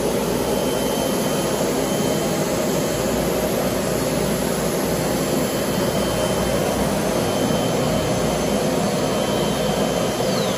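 Industrial plastics-processing machinery running at a steady pace: a loud, even mechanical rush with faint steady high tones and no change in level.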